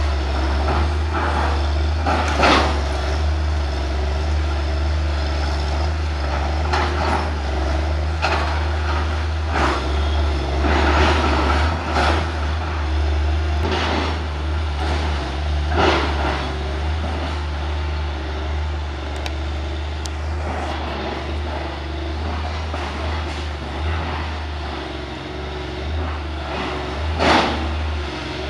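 Caterpillar hydraulic excavator's diesel engine running steadily under load as it tears down a wooden house, with repeated crashes and clatters of corrugated metal sheeting and timber. The sharpest crashes come a couple of seconds in and near the end.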